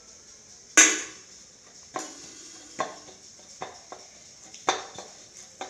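A ball of oiled maida dough is worked by hand against a steel plate, giving a string of about seven sharp, uneven knocks and clanks of the metal. The first, a little under a second in, is the loudest and rings brightly.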